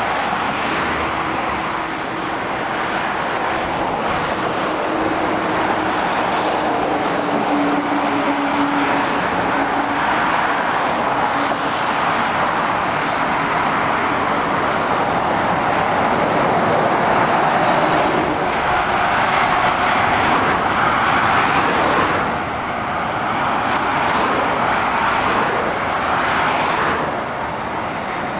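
Motorway traffic: lorries and cars driving past, a steady roar of tyres on the road that swells and dips as each vehicle passes. A faint engine hum slowly drops in pitch during the first ten seconds.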